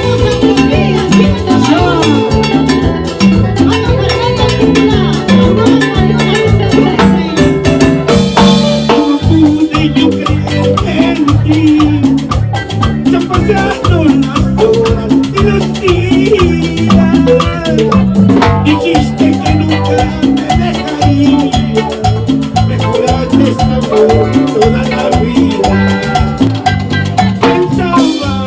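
Live Latin tropical dance band playing an instrumental passage, with a steady driving beat, a repeating bass line and a bright melodic lead on top.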